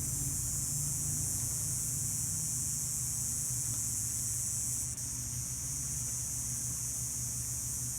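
A steady, high-pitched buzzing that does not let up, over a low steady hum. Its source is unidentified; some suggest a cicada, others a spruce beetle.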